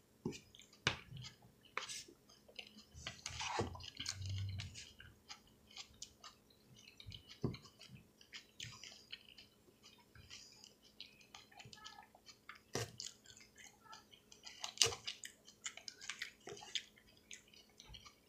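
Close-miked chewing of salad: many irregular wet mouth clicks and smacks.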